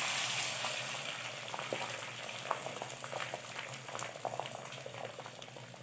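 Beaten egg poured into hot oil in a kadhai, sizzling: a hiss that is loudest as the egg goes in and fades steadily, with scattered crackles and pops as it sets.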